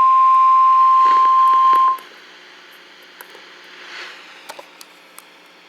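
Weather-radio emergency alert tone, a steady single high tone around 1 kHz (the 1050 Hz warning alarm) that cuts off abruptly about two seconds in; it signals that a warning message follows. After it, only faint radio hiss with a few small clicks remains.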